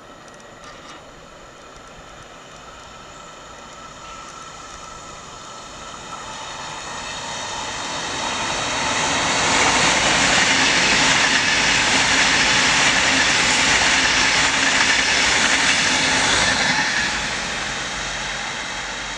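A Pendolino high-speed electric train approaching, growing steadily louder, then passing close by with a loud rush of wheels on rail and air for several seconds. The sound drops suddenly about two seconds before the end, leaving a quieter train sound.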